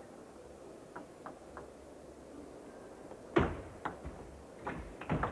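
Table tennis ball and bats: a few light ball taps about a second in, then the sharper hits of a rally on bats and table, the first of them the loudest.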